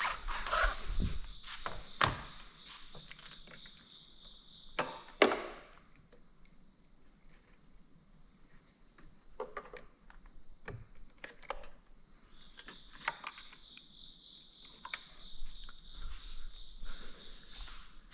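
Scattered knocks and clicks of handling work, the loudest about two and five seconds in, over two steady high-pitched tones.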